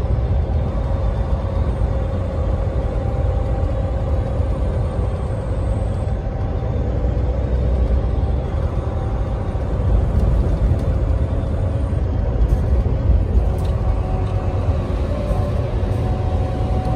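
Semi-truck cab noise while driving: a steady low engine and road rumble with a faint steady hum.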